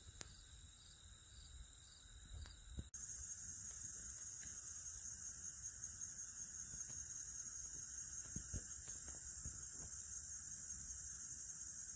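Insect chorus in the prairie grass: a steady, high-pitched trill of crickets or katydids, with a faint evenly pulsing call over it in the first few seconds. About three seconds in it becomes suddenly louder and carries on evenly.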